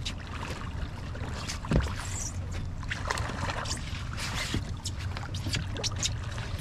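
Water splashing and knocking against a boat as a hooked catfish is netted at the bow, with many short sharp clicks and splashes and one louder thump about two seconds in, over a steady low hum.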